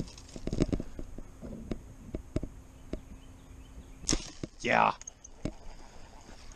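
A compound bow is shot about four seconds in: a sharp snap of the string, followed by a half-second whine that falls in pitch as the line whizzes off the bowfishing reel behind the arrow. Before it, scattered light clicks and knocks.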